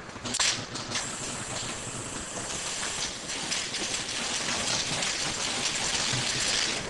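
Bottle filling line running: small plastic bottles clattering along the conveyor and through the feed screws, a dense, steady high patter. A couple of sharp knocks come about half a second in, and the sound cuts off abruptly at the end.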